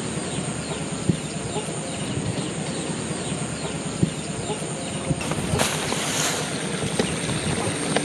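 Open rice-field ambience: a steady low rumble under a constant high insect whine, with many short falling chirps of small birds. A brief rushing sound swells and fades between about five and six and a half seconds in.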